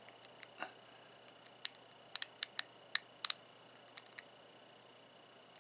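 Sharp metal clicks of an old-style socket extension being pushed onto and pulled off a ratchet's square drive, testing how well the drive's detent holds it. The clicks are scattered, with a quick cluster of them about two to three and a half seconds in.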